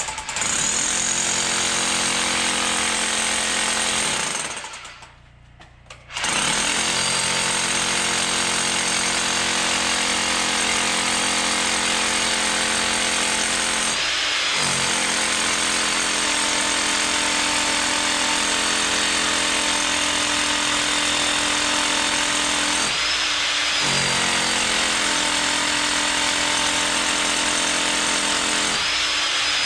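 Hammer drill boring into a concrete footer, drilling holes for rebar dowels. It runs steadily, stops for about two seconds near the start, then restarts with brief hitches three times later on.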